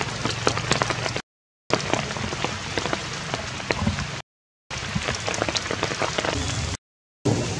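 Rain falling on forest leaves, a steady patter with many sharp individual drips, broken three times by brief total dropouts in the sound.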